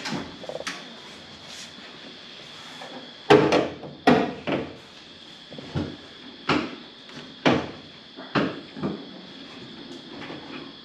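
A string of irregular knocks and clunks, about eight over several seconds, the loudest about three seconds in, from hands working on the car's sheet-metal front fender. A faint steady high tone runs underneath.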